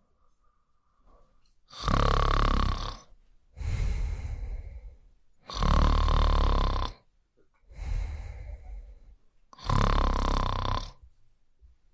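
Snoring in a steady breathing rhythm: three loud snores about four seconds apart, each followed by a quieter, breathier sound on the next breath.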